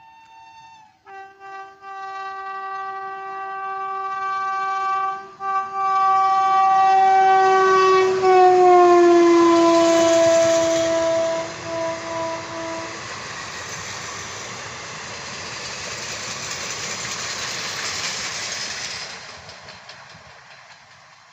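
Horn of a WAP-5 electric locomotive: a few short toots, then a long blast whose pitch falls as the locomotive passes. It is followed by the loud rush of the train's wheels running over the track, which fades away near the end.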